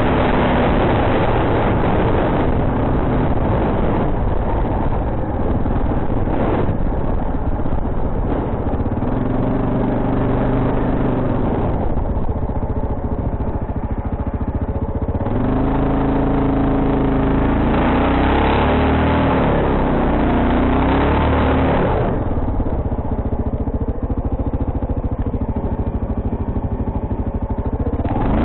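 Quad bike (ATV) engine running under way, its pitch rising and falling several times as the throttle is opened and eased off.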